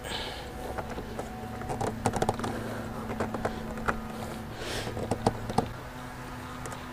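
Scattered clicks and light rattles of the rubber air intake boot and its plastic fittings being wiggled and worked loose by hand, over a faint steady low hum.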